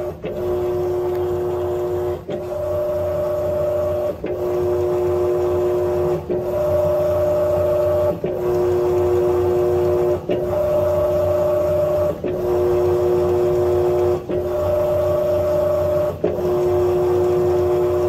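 Electrolux LAC17 top-loading washing machine's drive motor running under load with a steady hum and a whine. It stops briefly and reverses about every two seconds, the whine changing pitch with each direction, as the impeller agitates a heavy load of blankets.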